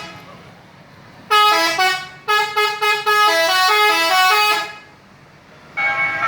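Bus 'telolet' musical horn playing a quick tune of short stepped notes, first a brief phrase and then a longer run of notes. Near the end, another horn sounds a steady chord.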